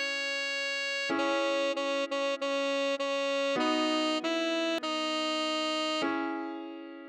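Tenor saxophone playing a melody over piano chords: a long high note, then a string of short repeated and stepping notes, ending on a held note that fades out about six seconds in.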